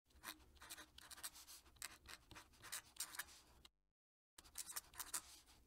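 Leonardo Furore Salt fountain pen's 1.1 mm stub nib scratching faintly across paper in quick cursive strokes, writing a signature. The strokes stop for well under a second about two thirds of the way in, then carry on.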